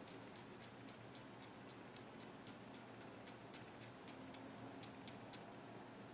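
Staedtler pigment liner fine-tip pen flicking quick short strokes on paper: faint, scratchy ticks about four a second that stop a little before the end.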